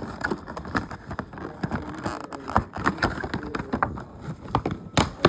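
Plastic packaging being handled and worked open, giving irregular crackles, crinkles and sharp clicks.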